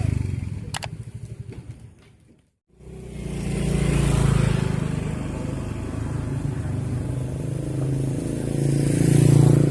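A small engine running, its pulses fading away over the first two seconds. After a brief break it runs steadily again, swelling in level around four seconds in and again near the end, with some wind noise.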